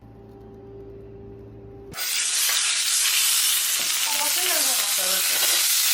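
A steady low hum, then about two seconds in a sudden cut to loud, steady sizzling of food frying on a hot pan.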